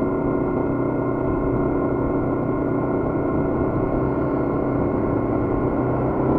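Yamaha MT-series motorcycle engine running steadily at constant revs while cruising, heard from on the bike, with wind rumbling on the microphone.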